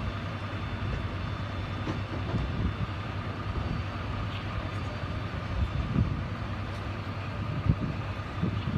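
A large engine running steadily at a low pitch, with a few knocks and bumps in the second half.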